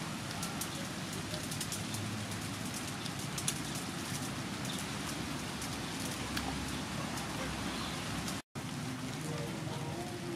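Steady hiss of outdoor background noise, with scattered faint ticks. The sound cuts out for a moment about eight and a half seconds in.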